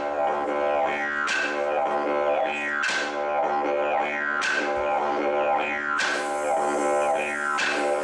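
Didgeridoo playing a continuous low drone with rhythmic whooping overtone glides, and a sharp accent about every one and a half seconds.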